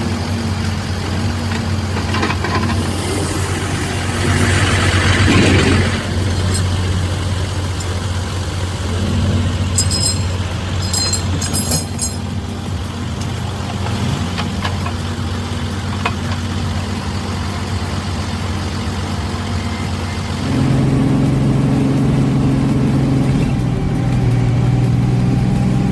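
Heavy logging truck's diesel engine running steadily, with a hiss about five seconds in. About twenty seconds in the engine note changes and grows louder.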